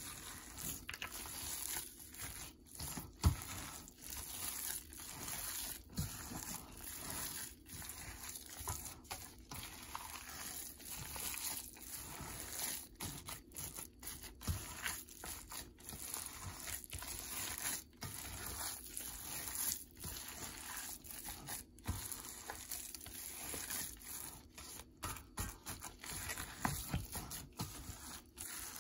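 Hand in a plastic glove kneading minced pork mixture in a stainless steel bowl: irregular wet squishing and glove crinkling, with one sharp knock about three seconds in.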